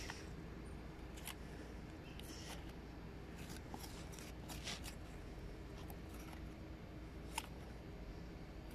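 Metal spoon scraping and scooping into packed sand: irregular short gritty scrapes about once a second, with one sharp click about seven seconds in.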